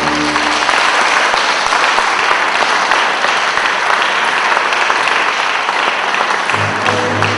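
Audience applauding with dense, even clapping. The orchestral music ends about half a second in, and new orchestral music starts about a second before the end.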